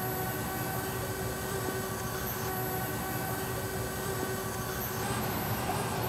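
Parrot Bebop quadcopter flying, its four electric motors and propellers giving a steady buzzing whine made of several held tones over a rushing hum.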